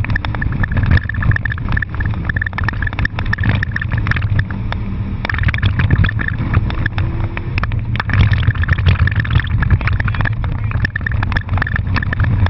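Car being driven hard, heard from inside the cabin: the engine runs loud under load, with frequent sharp knocks and rattles and a steady high whine that drops out briefly around four to five seconds in.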